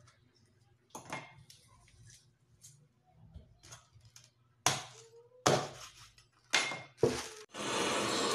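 Meat cleaver chopping raw chicken on a wooden chopping board: separate sharp chops at uneven intervals, the four loudest in the second half. Near the end a steady rushing noise takes over.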